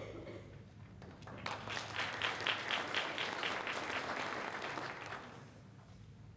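An audience applauding in a hall. The applause starts about a second in, swells, and fades out near the end.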